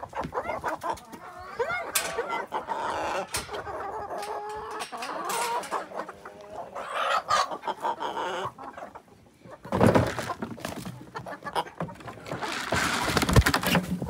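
Black Copper Marans hens and rooster calling, many short rising and falling calls one after another. A brief burst of noise comes about ten seconds in, and a louder stretch of noise near the end.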